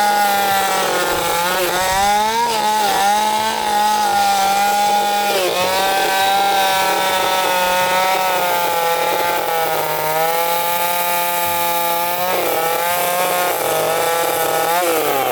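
Chainsaw running at high speed while carving wood, its pitch dipping briefly several times as the chain bites in under load.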